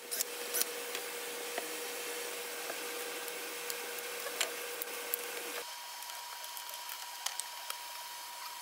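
Shop vacuum running steadily with scattered clicks as it sucks up MDF dust and chips. About five and a half seconds in, its pitch rises and the sound turns thinner.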